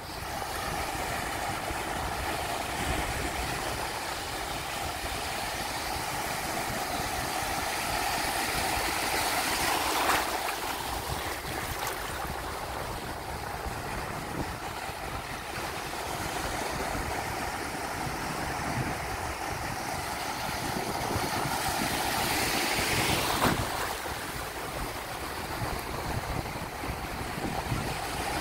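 Small sea waves breaking and washing through the shallows, with wind rumbling on the microphone. The surf swells louder about ten seconds in and again a little after twenty seconds.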